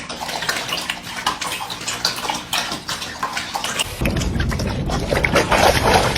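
A dog drinking from a water bowl: a quick, irregular run of wet lapping and splashing, which grows louder and heavier about four seconds in.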